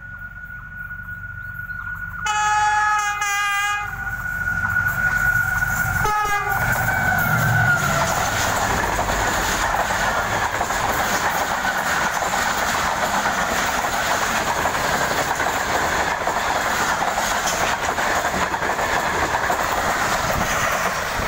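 GE GEU-40 diesel-electric locomotive sounds its horn as it approaches at speed: a long blast about two seconds in and a short one about six seconds in. Then the passenger coaches rush past close by, with a steady din of wheels clattering over the rail joints.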